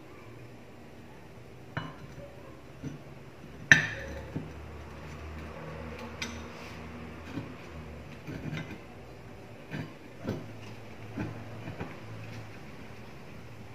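Scattered clinks and knocks of a flat iron's metal parts and hand tools being handled during its repair, the loudest a sharp knock a little under four seconds in. A faint steady low hum runs underneath.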